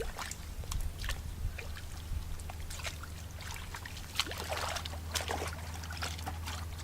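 Shallow water sloshing and trickling, with scattered light splashes and small clicks, a little busier about four seconds in, over a steady low hum.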